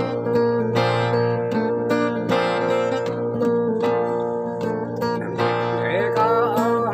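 Acoustic guitar strummed in a steady rhythm, about one strum every three-quarters of a second, with a man singing a Jarai song over it; the voice is clearest near the end.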